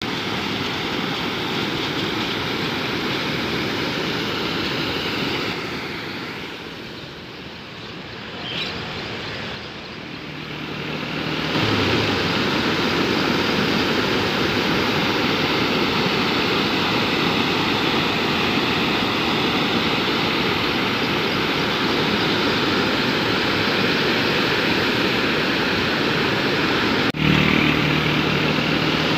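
Steady rushing noise of fast-flowing floodwater, which drops for a few seconds about a third of the way in and then comes back slightly louder.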